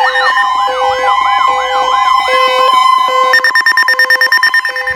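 Several emergency alert tones layered at once: a steady weather-radio alarm tone under a quick up-and-down siren sweep and a low beep a little more than once a second. A little past halfway the sweeping stops and a fast, stuttering pulse takes over.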